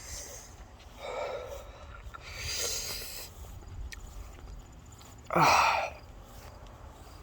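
A man breathing hard against a hot chili pepper's burn: a breathy exhale about a second in, a longer hissing breath of air a moment later, and a short, loud groan with a falling pitch a little past five seconds.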